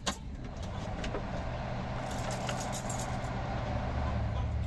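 Multicab's Suzuki F6A three-cylinder petrol engine idling with a low, steady rumble that slowly grows louder, a few faint clicks over it. The engine has just caught after hard starting.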